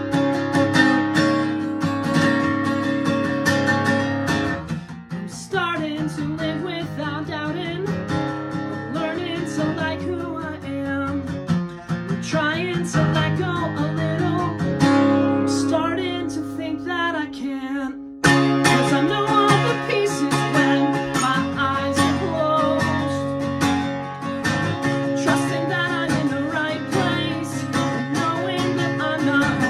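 Acoustic guitar strumming chords, with a short break about eighteen seconds in before the strumming comes back in.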